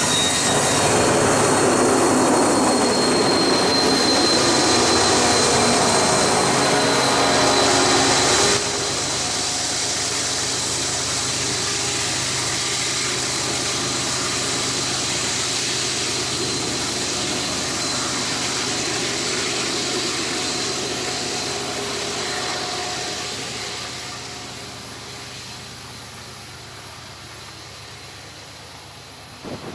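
Double-stack container freight train rolling past, wheels on the rails with a thin high squeal in the first several seconds. The level drops suddenly about eight and a half seconds in, then the rumble of the cars and the rear diesel locomotive fades steadily as the train moves away.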